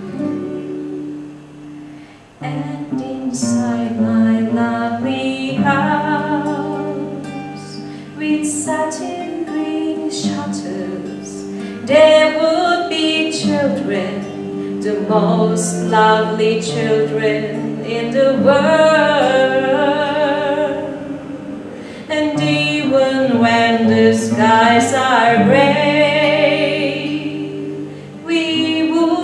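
A woman singing with vibrato on held notes, accompanied by a classical guitar; her voice comes in about two and a half seconds in, after a short guitar-only stretch.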